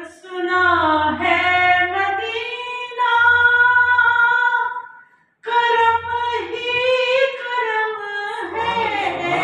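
A woman singing a naat unaccompanied, drawing out long held, ornamented notes, with a brief breath about five seconds in.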